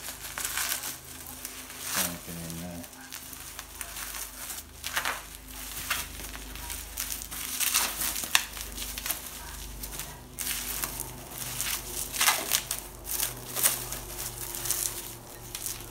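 Plastic bubble wrap crinkling and crackling irregularly as it is handled and pulled off a wrapped part.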